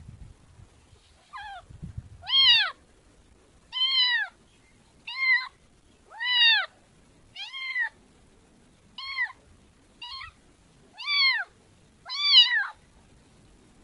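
Kitten meowing over and over: about ten high-pitched meows roughly a second apart, each rising and then falling in pitch.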